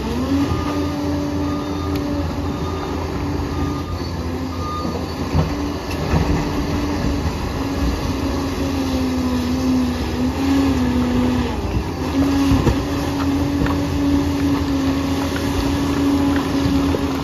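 Liebherr 746 crawler bulldozer's diesel engine running steadily under load, its pitch sagging for a moment about ten seconds in and then picking back up, with a few faint clanks over the low rumble.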